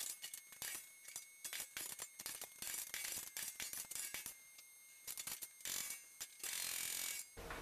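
Wooden blocks and offcuts handled inside a steel keel shell, knocking and clattering lightly against the steel plate in a scatter of small irregular knocks, with a short scrape near the end.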